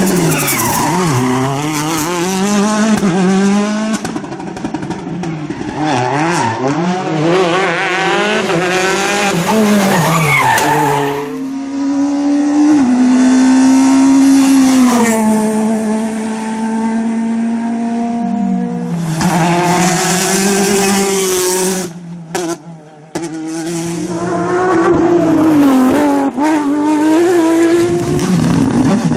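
Rally car engine driven hard, its pitch climbing and falling again and again through gear changes and corners, with tyre squeal. About three quarters of the way through the sound drops away briefly, then picks up again.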